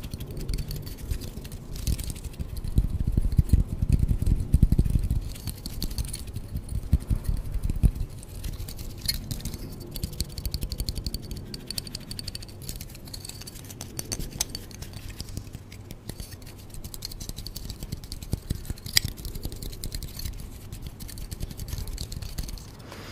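Close-miked ASMR handling sounds: fingers fiddling with and crinkling a small wrapped item against the microphone. There is dense crackling and clicking throughout, with heavier low handling rumble a few seconds in.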